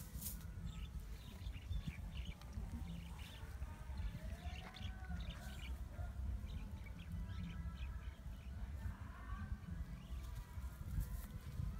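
Birds chirping and calling: many short high chirps and a few curving calls scattered throughout, over a low steady rumble.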